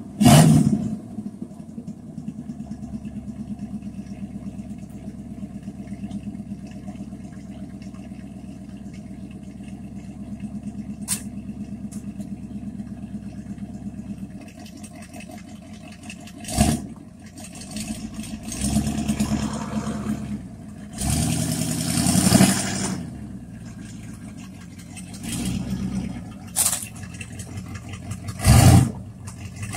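Jeep J20 truck engine idling steadily, then revved in several short bursts through the second half, with a few sharp loud peaks.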